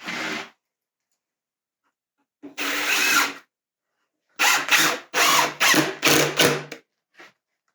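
Power drill running in short trigger bursts, driving screws into a wooden panel: one short burst, a longer run of about a second, then a quick series of about six short pulses.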